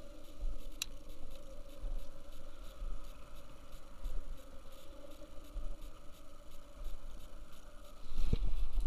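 Wind buffeting the microphone in uneven gusts, over a faint steady hum. A single sharp click about a second in, and a knock near the end, after which the wind rumble grows louder.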